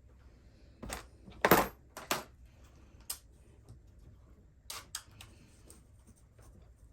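Short hard clicks and clatter of small RC car parts and tools being handled during disassembly, with a cluster in the first two seconds (the loudest about a second and a half in) and a few more around three and five seconds in.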